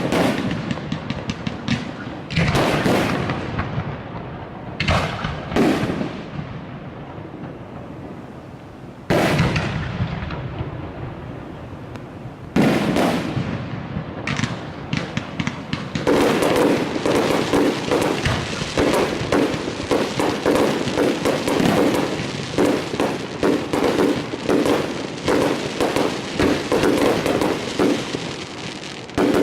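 Aerial fireworks bursting: several separate booms, each fading off, over the first half, then from about halfway a rapid barrage of many bangs and crackles in quick succession.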